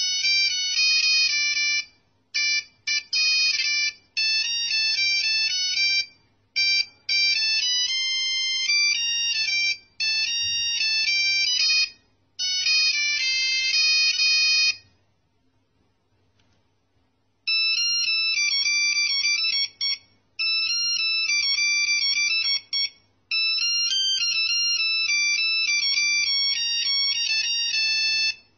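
An old Nokia mobile phone playing a high-pitched monophonic ringtone melody of quick beeping notes in phrases. The tune pauses for about two and a half seconds midway, then runs again.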